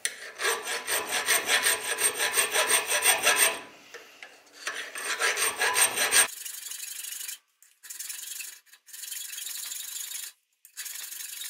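Hand file rasping back and forth across a steel knife tang, filing in the guard shoulders flat and even against a file guide. Two runs of steady strokes with a short pause between them, then fainter, hissier strokes in short runs with brief gaps from about six seconds in.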